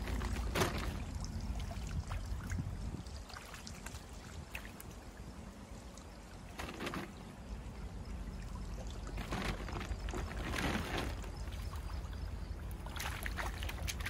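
Shallow stream flowing steadily, with several brief splashes and sloshes of water as fish are picked out of a cast net lying in the water.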